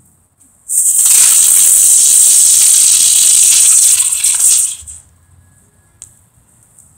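Ground bloom flower firework spinning on the ground: a loud hissing spray of sparks. It starts about a second in and cuts off after about four seconds.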